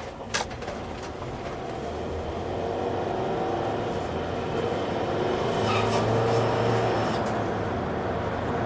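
Ford Transit Connect's 1.6-litre EcoBoost turbocharged four-cylinder accelerating under load, its engine note building over the first few seconds and then holding steady. A single click sounds just after the start.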